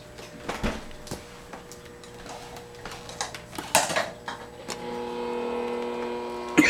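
African grey parrot playing with a plastic cup on a bathroom floor: scattered light taps and knocks, a cluster of them a little under four seconds in. A steady hum comes in a little under five seconds in.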